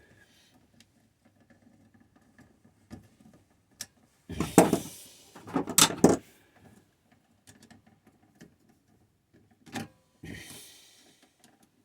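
Hand tools and small metal parts being handled while working on a well pump pressure switch: scattered light clicks, two louder scraping clatters about four and six seconds in, and a sharp click followed by a short scrape near the end.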